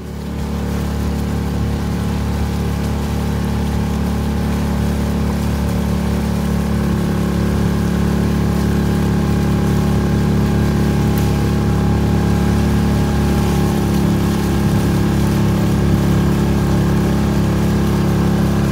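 An engine running steadily at constant speed, a loud, low droning hum that starts abruptly and holds without revving.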